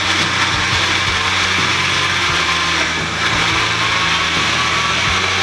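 Cuisinart countertop blender running steadily at speed, pureeing peaches and simple syrup into a smooth puree.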